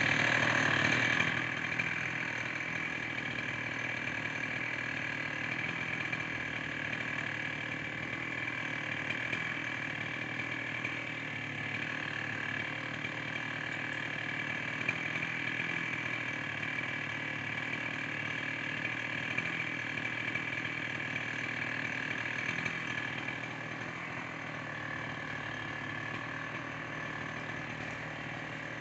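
Husqvarna 61 two-stroke chainsaw idling steadily, a little louder for the first second or so.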